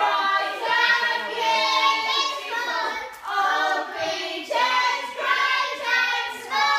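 Young people's voices singing loudly together in high pitch, in held, gliding phrases with short breaks between them.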